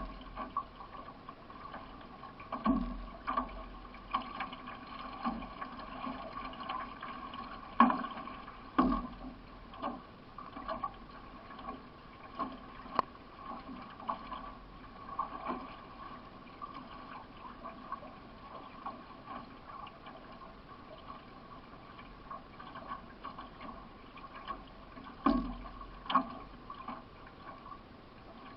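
Solo racing canoe under way, its paddle strokes dipping and splashing in the water with sharp peaks about once a second, fewer through the middle stretch, over a steady rush of water.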